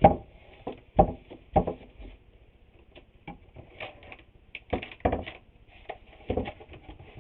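Irregular knocks and clunks of wooden boards and tools being handled and set down on a workbench, in uneven bunches, the loudest right at the start and about a second in.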